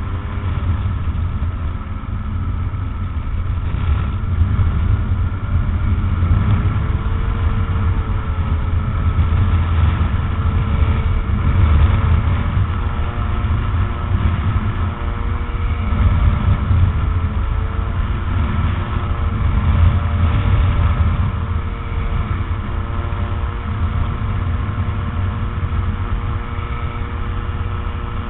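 Rotax 912 flat-four engine and propeller of a motor trike in flight, running at a steady cruise with its pitch wavering slightly a few times, mixed with heavy wind rumble on the open cockpit's microphone.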